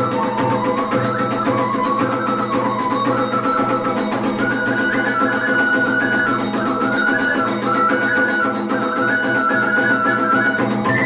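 Music: a flute-like melody moving up and down in short steps over a steady low drone, the tune climbing a little higher about halfway through.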